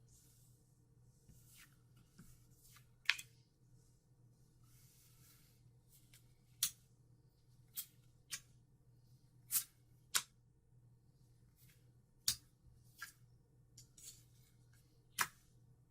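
Trading cards being handled: about nine sharp, short snaps and clicks at irregular intervals, with a couple of soft sliding sounds, over a steady low hum.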